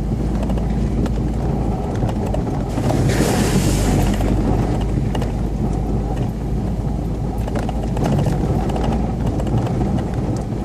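UAZ Patriot off-roader's engine running steadily, with many small knocks and rattles throughout and a short rush of noise about three seconds in.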